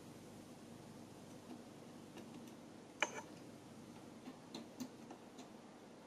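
Quiet room with a few small clicks and taps from a soldering iron and component leads against a circuit board while new capacitors are soldered into a power-supply board. One sharp click comes about three seconds in, then several fainter ticks.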